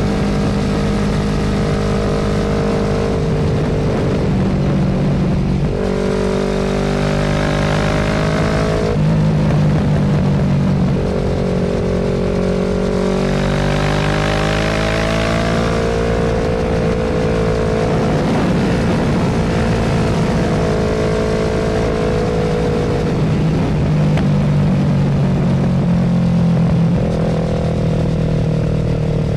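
Motorcycle engine running under way, its pitch stepping up and dropping back several times as it shifts through the gears, with one longer climb in pitch around the middle. A steady rush of wind noise runs underneath.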